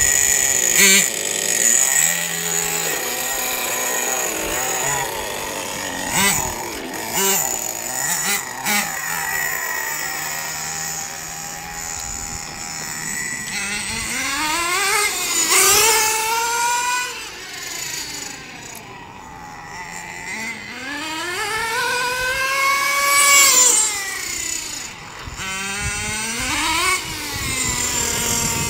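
Hot Bodies Lightning Stadium Pro 1/10 nitro stadium truck's 2.5cc two-stroke glow engine revving up and down as the truck drives. Its pitch climbs and falls in several long sweeps, most clearly in the second half.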